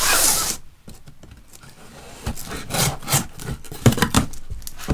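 Knife blade slitting the packing tape on a cardboard box: a short loud rasp at the start, then scraping and small knocks as the blade runs along the seam and the cardboard rubs.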